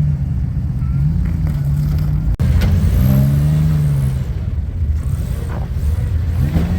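Off-road 4x4 truck engine running under light throttle while crawling over obstacles, its pitch rising and falling as the throttle is worked, with a short rev about three seconds in.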